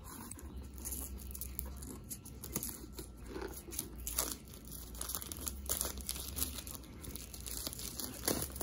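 Clear plastic shrink-wrap being picked at with the fingers, torn open and peeled off a box, with irregular crinkling and crackling.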